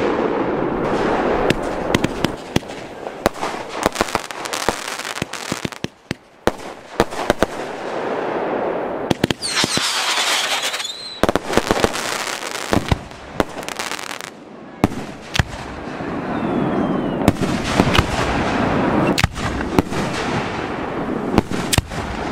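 Fireworks display: many sharp bangs of bursting shells over a dense crackling hiss, with a high hissing whistle about ten seconds in.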